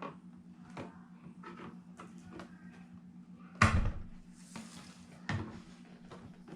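Plastic clips on the back cover of an HP all-in-one computer being pried loose: scattered clicks and scrapes, with one loud snap a little past halfway and a smaller snap near the end.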